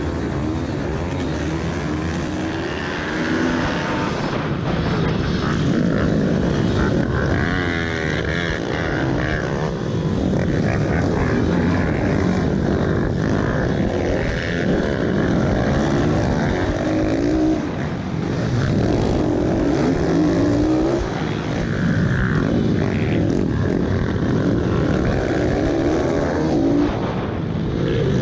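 Several pit bike engines, the rider's own and a pack of others close around it, revving hard and dropping back again and again as they accelerate off a race start. The pitch keeps climbing and falling through the gears.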